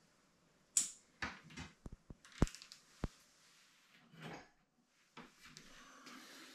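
Kitchen wall-cupboard door being handled: a quick run of knocks and clicks over about two seconds, then softer rustling movement at the counter.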